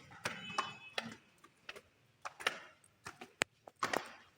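Irregular light clicks and taps, a dozen or so scattered sharp strokes with one sharper click a little past three seconds in.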